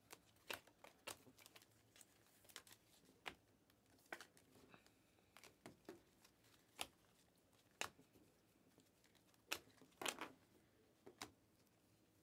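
Panini Mosaic basketball cards clicking and flicking against each other as a stack is thumbed through card by card: faint, irregular sharp ticks, a few louder ones near the end.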